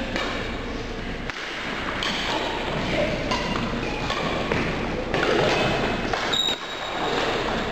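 Badminton doubles rally on a wooden gym floor: sharp racket strikes on the shuttlecock amid thudding footsteps, with a few brief shoe squeaks.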